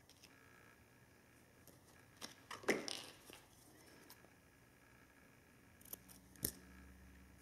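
Small scissors cutting strips of adhesive first-aid tape, with the tape crackling as it is handled. A cluster of snips and crackle comes between two and three seconds in, then two sharp snips near the end.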